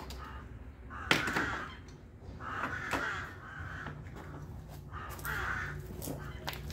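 Crow cawing several times, each harsh call lasting about half a second, with a sharp click about a second in.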